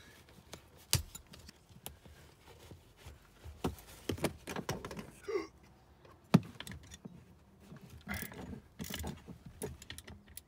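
Hands working at a truck's rear seat mount and seat-belt hardware: scattered metal clicks, knocks and rustling. The loudest knock comes a little past six seconds in, with a sharp click about a second in.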